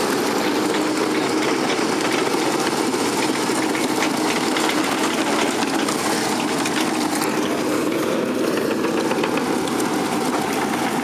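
Diesel engine of a Hyundai 160LC-7 crawler excavator running steadily at an even pace as the machine moves in on tracks to recover a stuck pickup.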